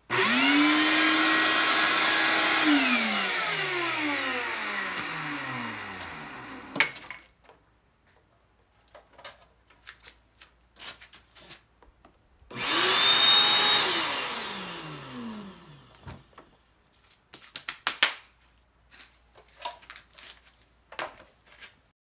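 Two Shop-Vac wet/dry vacuums are switched on briefly, one after the other, each motor whining up to speed and then spinning down with falling pitch after it is switched off. The large orange Shop-Vac runs for about three seconds. About twelve seconds in, the small black Shop-Vac runs for a second or two. Clicks and handling knocks follow near the end.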